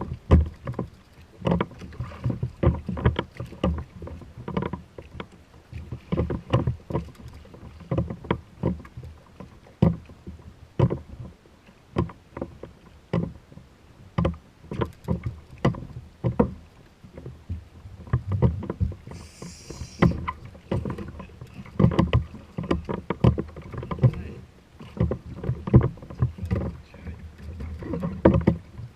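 Water slapping and knocking irregularly against a kayak hull, with a brief hiss about two-thirds of the way through.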